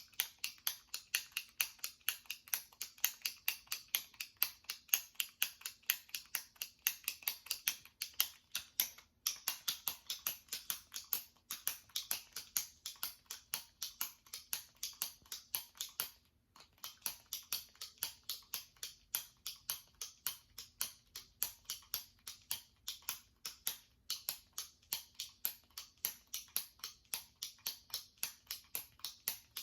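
Jumbo retractable pen clicking over and over as its top button is pressed, about three sharp clicks a second, with a short break about halfway through.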